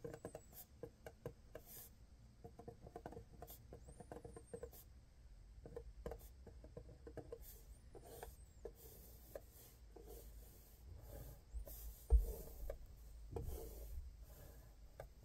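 Faint scratching and tapping of a white marker's tip writing on a paper label, with a low thump about twelve seconds in.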